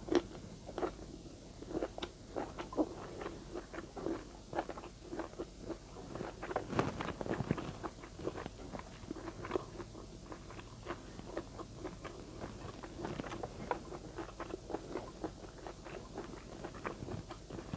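A person chewing a hand-fed mouthful of rice, spicy adobo and broccoli: many short, uneven mouth clicks and crunches of chewing.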